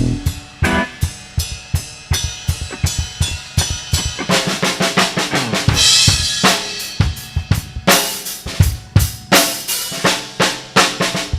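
Live drum kit played alone, a run of bass drum, snare and rimshot strikes, with a cymbal crash about six seconds in.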